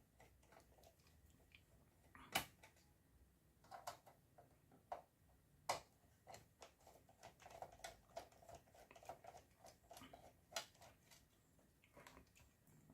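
Sparse light clicks and taps from hands handling parts inside a desktop PC case, over near silence. The sharpest click comes a couple of seconds in and another just before the middle.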